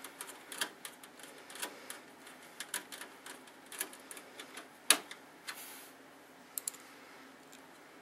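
A hand screwdriver turning screws into a metal hard-drive bay: irregular light metal clicks and ticks, with one sharper click about five seconds in.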